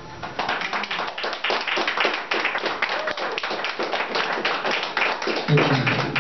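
Applause from a small audience: many hands clapping densely and unevenly, with a voice or two calling out over it.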